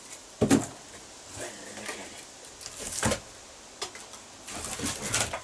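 Pieces of split firewood knocking and clattering together as they are picked from a woodpile. There is one sharp knock about half a second in, more knocks around three seconds, and a quick run of clattering near the end.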